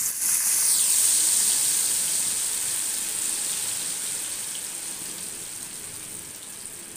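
Potato fries going into hot oil in a steel wok: a sudden loud sizzle that peaks about a second in and slowly dies down as the oil keeps bubbling.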